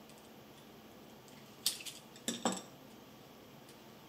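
Three small metallic clicks: one about a second and a half in, then two close together a moment later, as a precision screwdriver and tweezers work a broken screw and inner housing out of a camera lens's mount.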